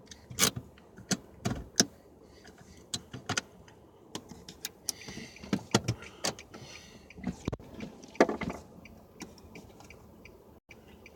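A scatter of irregular clicks and knocks inside a car, with brief rustling in the middle.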